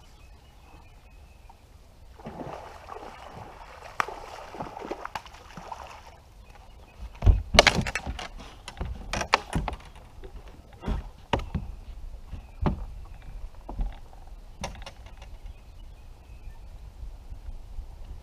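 A hooked bass being fought and landed at the side of a fishing boat: water splashing, then a run of sharp, irregular knocks and thumps against the boat, loudest about seven seconds in.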